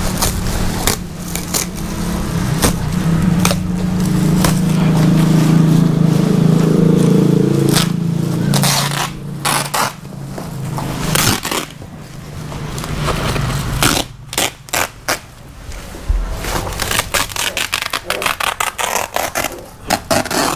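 Woven plastic sacking and cardboard being torn, pulled and scraped as a bale of bedding is unpacked, with many sharp crackles and rips. A steady low hum runs underneath for several seconds near the start.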